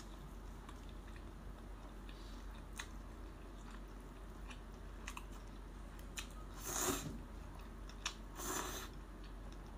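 Close-up chewing and biting of steamed scallops with garlic vermicelli, with small clicks throughout and two louder bursts of noise near the end.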